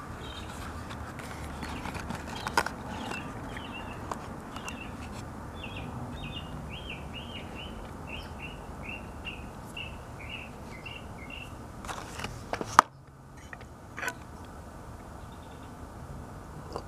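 A songbird singing a long run of quick, short chirps over a steady outdoor background hiss. Near the end come a few sharp clicks, and then the background drops away suddenly.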